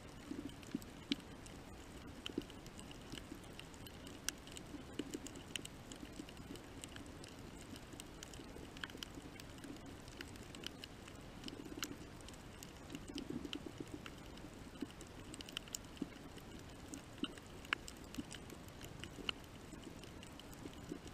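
Underwater coral-reef crackle: many sharp, irregular clicks from snapping shrimp over a steady low murmur of the water.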